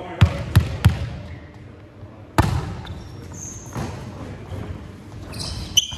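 Volleyball being bounced and hit: three quick bounces in the first second, a louder single hit about two and a half seconds in, and another just before the end. A couple of short high squeaks come in between.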